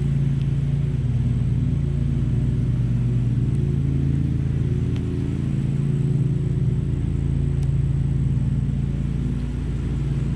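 Honeybees buzzing around an opened hive, a steady low hum that holds even throughout, with a few faint ticks.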